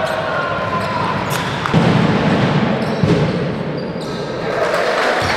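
Basketball bouncing on the court during a game: two heavy thuds about a second and a half apart, over steady noise in a large hall.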